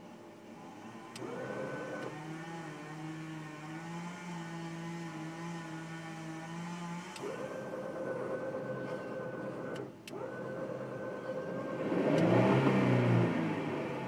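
An engine running at held speeds that shift in steps, with a short louder rev near the end.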